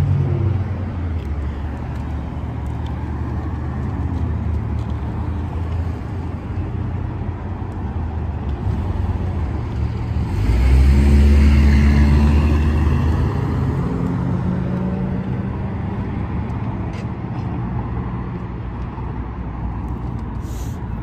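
Road traffic: a steady low rumble of cars, with one vehicle passing close, loudest about ten to thirteen seconds in, before fading away.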